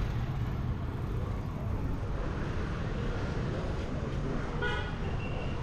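Street traffic rumbling steadily, with a single short vehicle horn toot about three quarters of the way through.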